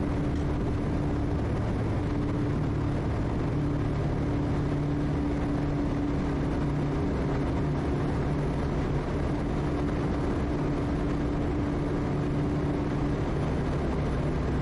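Quest Kodiak's PT6A turboprop engine and propeller at full takeoff power through the takeoff roll and initial climb: a steady drone with a low hum and a higher tone above it.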